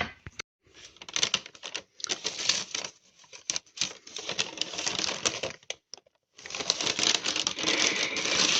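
Rustling and crinkling with many quick clicks, in three stretches broken by short pauses, as of something being handled.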